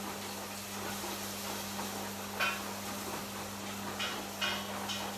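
A few light clinks of a utensil against a cooking pot on the stove, over a steady low hum and hiss.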